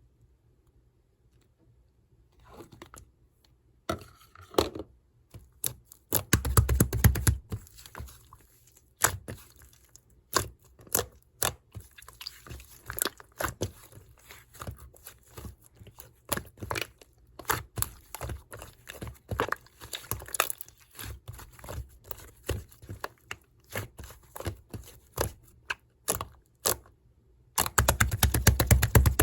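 Red slime being squished and kneaded by hand, making many small sticky pops and clicks, with denser crackling stretches about six seconds in and again near the end.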